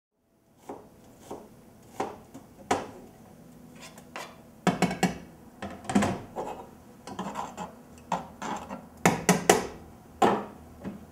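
Kitchen knife cutting on a cutting board: irregular knocks and scrapes, with a few quick clusters of sharper chops.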